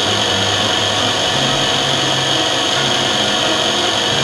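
Canton CT5412 lens drilling machine milling a slot in a spectacle lens: the spinning milling cutter gives a steady high whine, over a low hum that steps in pitch now and then.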